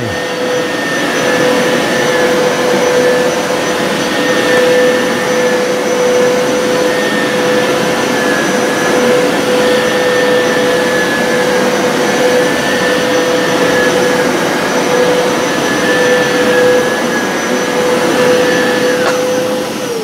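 Hoover PowerScrub XL carpet cleaner running in suction-only mode, its motor giving a steady whine over a rush of suction air. Near the end the motor is switched off and the whine falls away.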